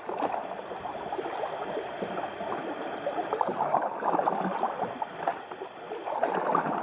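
Water splashing and gurgling around a sea kayak, a dense crackle of small splashes.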